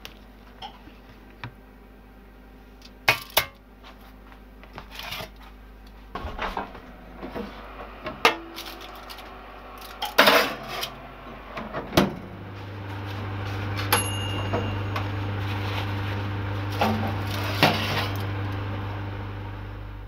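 Metal tray, foil and oven rack clinking and knocking as a foil-wrapped, resin-soaked wood blank is handled and slid into a countertop toaster oven for heat curing. About twelve seconds in there is a loud click, and a steady low electrical hum starts as the oven is switched on. A short metallic ring follows a couple of seconds later.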